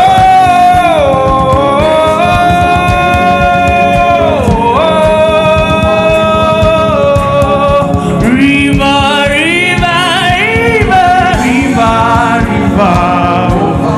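Gospel worship singing with instrumental backing: a voice holds long notes, sliding between pitches, then from about eight seconds in moves into shorter, ornamented runs.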